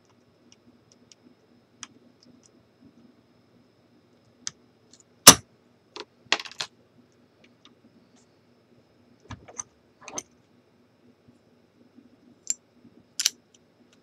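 Scattered sharp metallic clicks and clatter as a Yale five-pin dimple padlock and its picking tools are handled, the loudest a single sharp clack about five seconds in, with smaller clusters of clicks after it and near the end.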